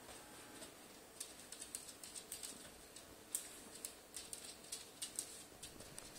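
Faint, quick, irregular clicks and taps from a cat's and a Great Dane's claws scrabbling on a laminate floor as they play-wrestle.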